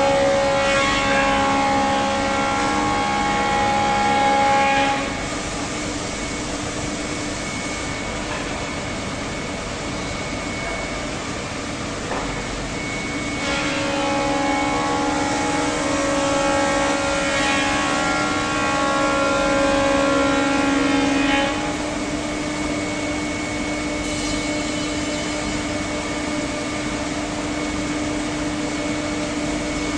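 Five-axis CNC wood router's spindle running with a steady whine. It gets louder and rougher, as when the bit is cutting the wood, for the first five seconds and again from about 13 to 21 seconds in, and is quieter in between.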